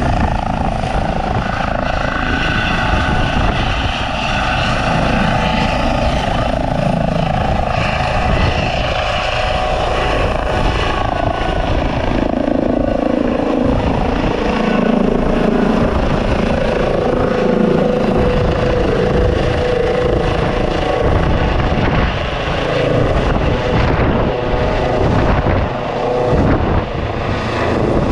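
Eurocopter EC135 air ambulance helicopter lifting off and climbing away overhead, its turbines whining and its main rotor beating steadily and loudly.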